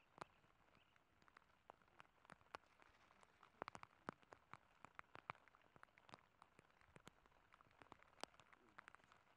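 Scattered raindrops falling close by: irregular light taps, a few a second, over a faint rain hiss.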